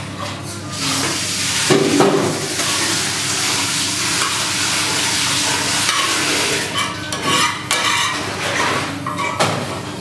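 Hot frying pan of pasta in a creamy sauce sizzling steadily as it is tipped out. Near the end come several short scrapes of a utensil pushing the pasta off the pan into a foam takeaway container.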